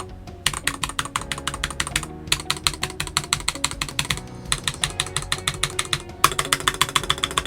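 Rapid typing on an Akko 5075 mechanical keyboard with unlubed Akko Wine White tactile switches, in fast runs of key clicks broken by short pauses about two, four and six seconds in. The keystrokes carry a ticking from the stabilizers, which are supposed to be lubed, and the reviewer takes that ticking as the sign of a poorly built board.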